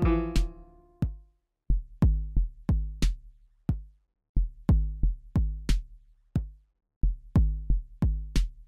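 Background music: a programmed drum-machine beat of kick and snare hits playing on its own, broken by short pauses between phrases, after a keyboard chord dies away in the first second.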